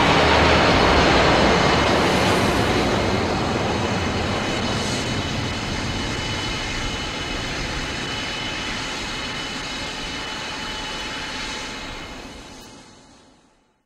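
Long roar of a nuclear explosion sound effect, slowly dying away and fading out near the end.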